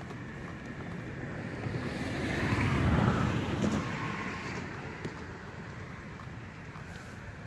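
A vehicle passing by, its noise swelling to a peak about three seconds in and then fading, over a low rumble of wind on the microphone.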